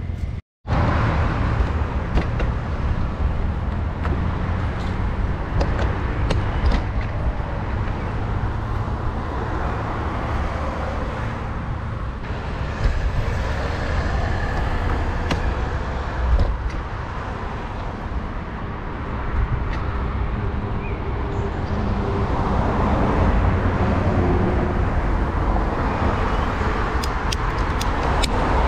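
Street traffic: cars driving past on a city road, a continuous rush of engines and tyres. All sound cuts out for a split second just after the start.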